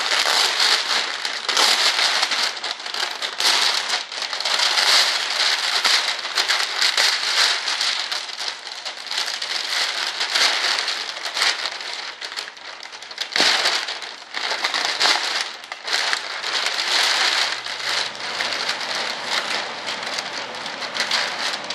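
Thick plastic bag crinkling and crackling as it is handled and pulled open around the parts inside, with a few brief pauses.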